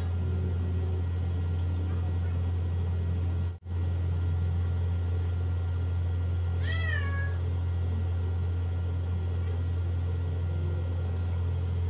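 A cat meows once, briefly, about seven seconds in, over a steady low hum that cuts out for a moment about three and a half seconds in.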